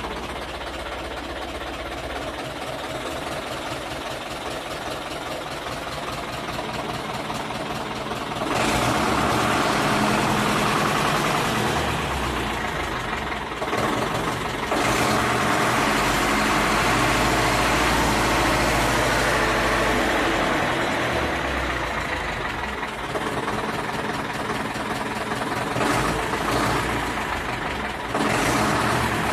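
Ursus C-360's four-cylinder diesel engine running, first at idle, then brought up to higher revs about eight seconds in. It dips briefly near the middle, settles lower again later, and is revved once more near the end.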